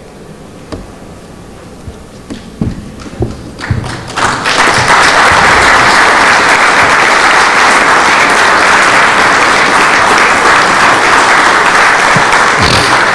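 Audience applause: a few scattered claps at first, then full, steady applause from about four seconds in.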